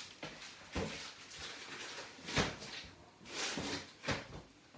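Four separate knocks and clunks of kitchen handling noise, the loudest about halfway through, one of them drawn out a little longer like a short scrape.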